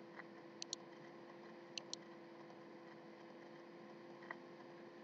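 Near silence with a faint steady hum, broken by a few soft computer mouse clicks: a pair about half a second in, another pair just before two seconds, and a faint tick a little after four seconds.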